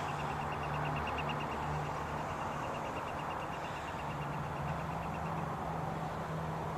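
A steady low hum, with a faint, fast, high-pitched ticking that stops about five seconds in.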